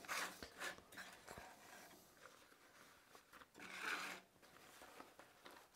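Faint handling sounds: an old canvas lead-shot bag being lifted out of a wooden box, with a soft rustle about four seconds in and a few light knocks and ticks.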